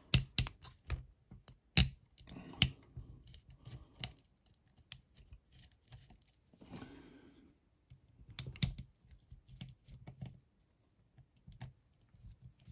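Irregular small clicks and scrapes of a precision screwdriver turning out the screws that hold the fan assembly in a plastic OO gauge model locomotive chassis, with a few sharper taps, the loudest about two seconds and eight and a half seconds in.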